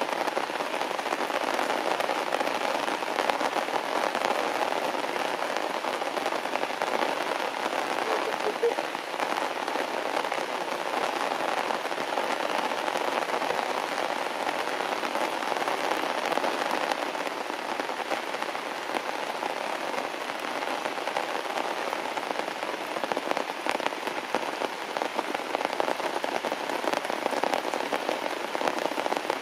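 Heavy rain falling steadily on grass and leaves, a dense, even patter of drops.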